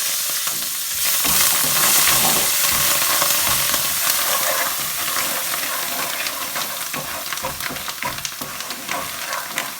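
Curry leaves, pandan leaves, coriander and mint hitting hot coconut oil with fried spice powder: the sizzle flares up about a second in, then eases off into a steady frying sizzle. A spoon stirring the pan makes frequent short clicks and scrapes.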